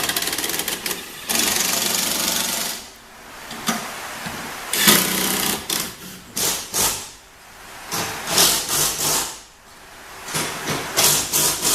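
A tool running down the nuts or bolts of a car's coilover mount in about six short bursts of rapid clicking, with brief pauses between them.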